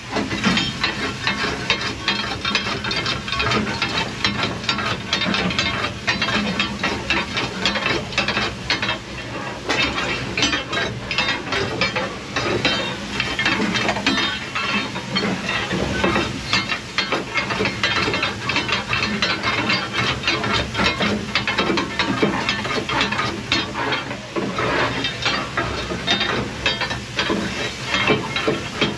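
A steam locomotive's fire being knocked out: a long steel fire iron scrapes and clatters against burning coal, clinker and grate bars in the firebox, breaking the fire down into the ash pan, in continuous irregular scraping and knocking. Under it runs a steady hiss of steam from the blower, left on to draw the fire.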